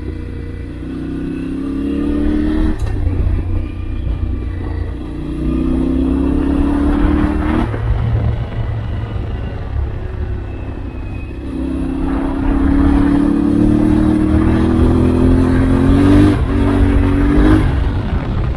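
A Yamaha Ténéré 700's 689 cc CP2 parallel-twin engine pulling hard three times, its pitch rising under throttle and dropping sharply as the rider shifts or rolls off. There is a steady low rumble underneath.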